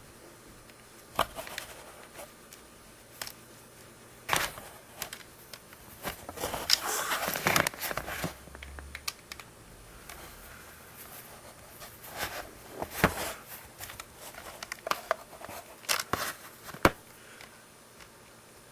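Hands working on the plastic body and parts of a Panasonic EW1250P water flosser: scattered sharp clicks and knocks, with about two seconds of crinkling about six seconds in.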